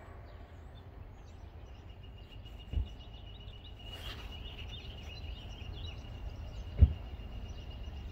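Outdoor trackside ambience: wind rumbling on the microphone, with scattered bird chirps and a thin, steady high whistle through the middle. Two dull thumps, the second louder, come about three and seven seconds in.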